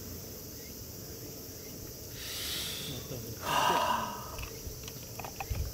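A man drinking from a tumbler: a breathy sip about two seconds in, then a louder gulp, with a few small clicks after. Insects chirr steadily behind it.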